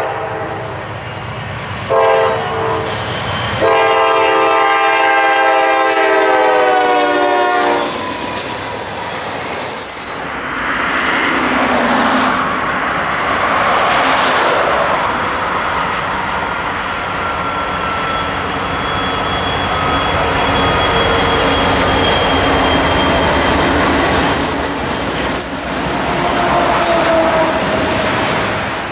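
Norfolk Southern diesel freight locomotive air horns sounding a few short blasts and then one long blast of about four seconds. The train then passes with a steady rumble of rolling wheels, clattering over rail joints and squealing at times, and a short horn note comes near the end.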